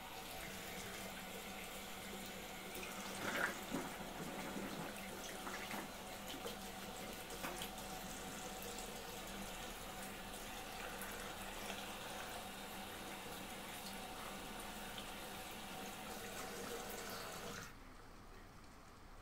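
Bathroom washbasin tap running in a steady stream, with a few light knocks, then turned off near the end.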